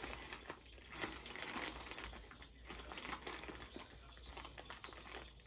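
Small metal parts and hardware clicking and rattling, handled in a rummage through a motor-kit parts box.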